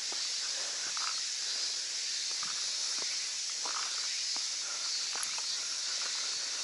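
Steady high-pitched insect chorus, even and unbroken, with faint footsteps and small clicks as someone walks along the bank.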